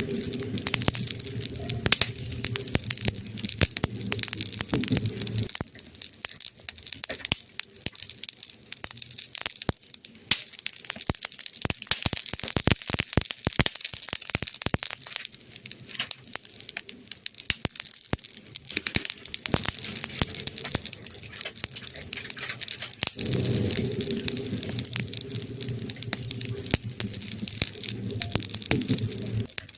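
Wood campfire crackling, with a constant stream of irregular sharp snaps and pops. A low rumble of the burning fire runs under the crackle for the first five seconds or so and comes back about two-thirds of the way through.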